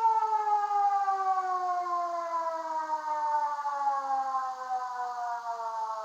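Siren tone of an emergency alert alarm winding down: one long wail with several overtones, gliding steadily lower in pitch and slowly fading.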